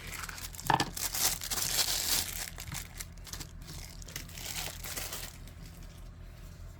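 Packaging crinkling and rustling in irregular bursts as a folding knife is unwrapped, busiest in the first couple of seconds and dying away about five seconds in.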